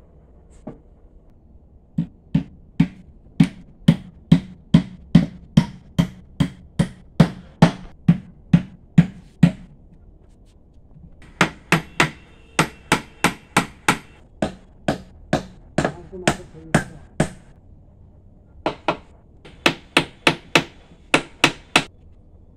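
A hammer striking the wooden frame of a chair during a leg repair, in three runs of quick, even blows at about two a second, with short pauses between the runs.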